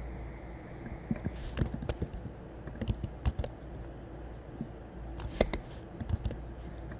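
Irregular clicks and taps of a computer keyboard and mouse, coming in small clusters, over a steady low hum.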